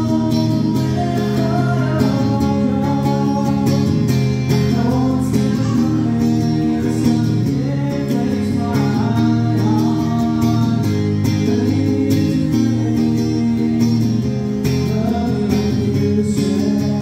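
Male voice singing over a strummed acoustic-electric guitar played through a small amplifier: a live solo song performance.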